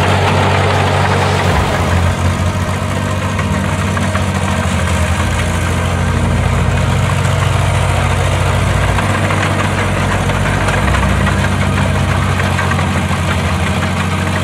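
Engine of a small Oliver crawler tractor running steadily at low speed as it tows a log-loaded bobsled.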